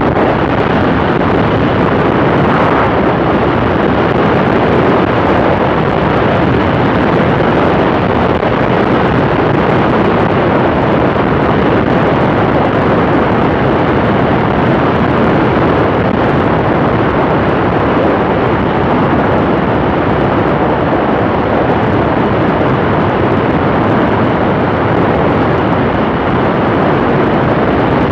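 Cessna Skylane in cruise flight: a loud, steady rush of airflow and propeller noise over the six-cylinder piston engine. The sound is heard through a camera mounted outside the aircraft, so wind on the microphone dominates.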